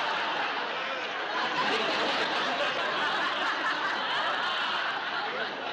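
Studio audience laughing at a sitcom punchline: a long, steady wave of laughter that fades near the end.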